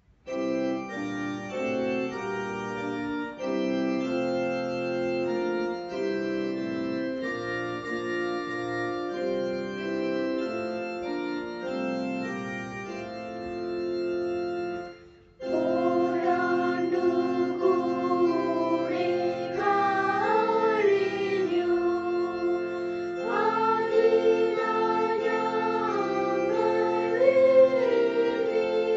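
An electronic keyboard plays a slow chordal introduction to a hymn. About halfway through it breaks off briefly, then a group of children starts singing the hymn, in Malayalam, over the keyboard accompaniment.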